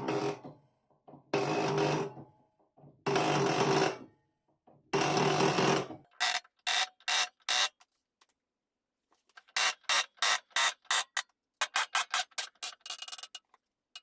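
Hydraulic press pumping as its ram bends an aluminium sheet over a wooden former. There are four runs of about a second each with a steady hum, then groups of rapid pulses, several a second.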